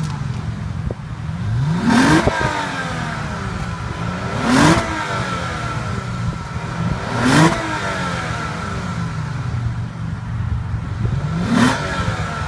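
2014 Lexus GS350 F Sport's 3.5-litre V6 idling through its dual exhaust and revved four times, each rev climbing quickly and then falling back to idle.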